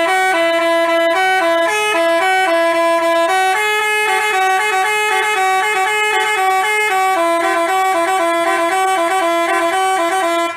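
Telolet basuri musical bus horn playing a quick tune, its notes stepping up and down, with two tones sounding together, and cutting off near the end.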